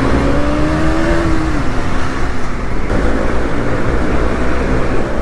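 Motorcycle engines at riding speed, among them a KTM Duke 390 with a modified exhaust, under heavy wind noise on the helmet microphone. An engine note climbs and drops off about a second and a half in, then comes up again more faintly later.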